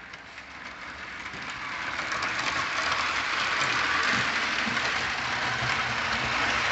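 O27 three-rail toy train running along the track, its wheels rolling and clattering on the rails, including a flatcar on 3D-printed PLA trucks. The sound grows louder over the first few seconds and then holds steady.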